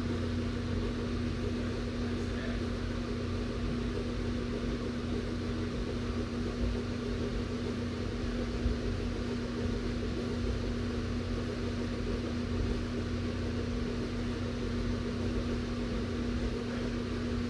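Large electric fan running steadily in the room: a constant whir with a steady low hum underneath.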